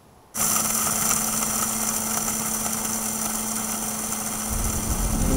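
Krups Silent Vortex electric blade grinder switched on: its motor starts suddenly and runs with a steady hum. Music with a low bass beat comes in near the end.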